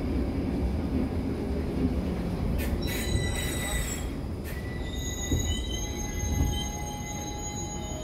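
Stockholm metro C6 train braking to a stop: a low rumble, joined by a high-pitched squeal from about three seconds in.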